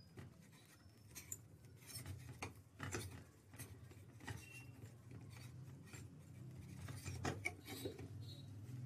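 Faint rubbing and scattered small clicks of a hookah stem being twisted and fitted onto its base, over a low steady hum.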